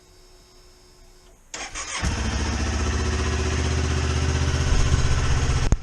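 2019 Kawasaki Z400's parallel-twin engine being started: about a second and a half in, the starter cranks briefly, the engine catches and runs steadily, then the sound cuts off suddenly near the end.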